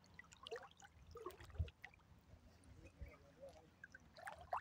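Faint water sloshing and small splashes of people wading waist-deep in a river, with a few faint voices.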